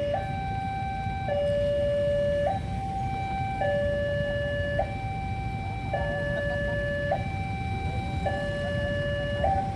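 Railway level-crossing alarm sounding a two-tone hi-lo siren, switching between a higher and a lower tone about every 1.2 seconds, over a low rumble.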